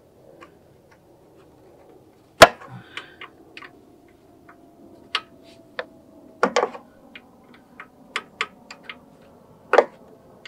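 Irregular sharp metallic clicks and clinks of an 11 mm wrench being fitted to and turned on a carburetor mounting nut on a snowblower engine, the loudest about two and a half seconds in.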